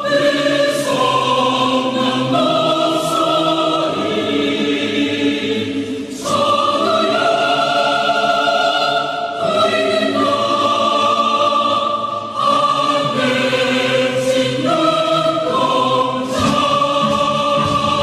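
Background music of slow, held choir-like chords that change every two to three seconds; near the end a lower part comes in.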